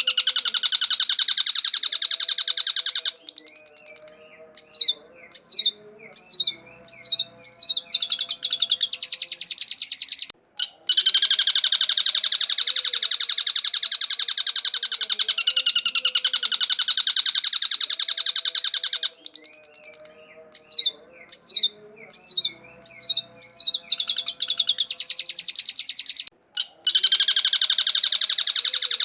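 Long-tailed shrike calling. Long, harsh, rapid chattering phrases alternate with runs of separate short notes, about two a second, and the same sequence repeats about every sixteen seconds.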